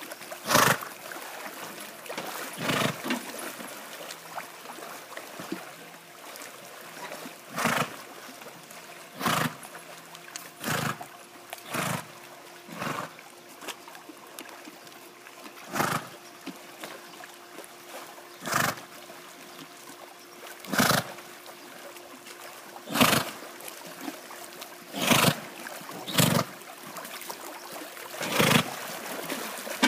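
A swimming horse blowing out loud, forced breaths every one to three seconds, over a steady wash of water around it.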